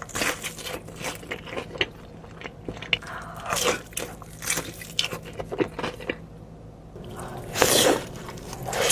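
Close-up biting and chewing into crispy fried hot chicken, with many irregular crunches of the breading and a louder crunchy bite near the end.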